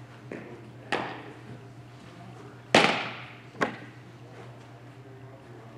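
Three sharp baseball impacts, about a second in, near three seconds (the loudest) and half a second later, each echoing around an indoor training hall, over a steady low hum.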